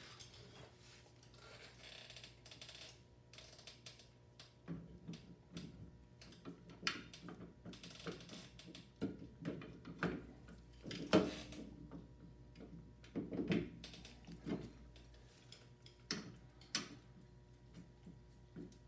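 Irregular metal clicks and knocks as a new rear wheel hub-and-bearing assembly is fitted into place and its bolts are started.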